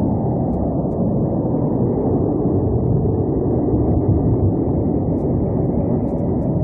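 Diesel locomotive engine running, a steady, dull low rumble with nothing in the upper range.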